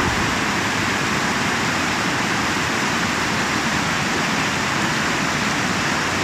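Steady rush of flowing water, an even noise that neither rises nor falls.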